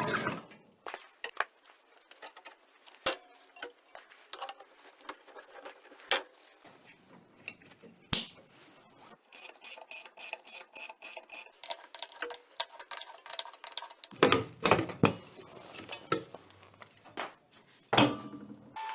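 Hard objects being handled: scattered clicks, taps and knocks, with louder clattering about three-quarters of the way through and again near the end.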